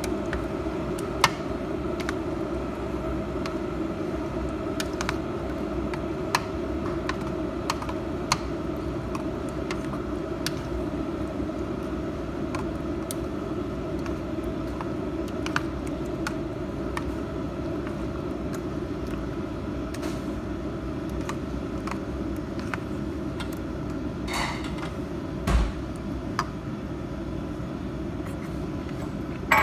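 A steady hum runs throughout, with scattered light clicks from a plastic spoon knocking against a stainless steel bowl as a creamy fruit salad is stirred.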